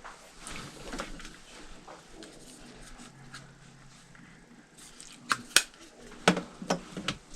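Hard objects knocking and clacking as they are handled, with a quick cluster of about seven sharp knocks in the second half.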